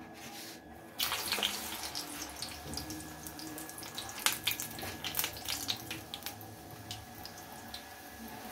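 A batter-coated sausage going into hot deep-frying oil about a second in: the oil breaks into a sizzle with many crackles and pops, slowly easing.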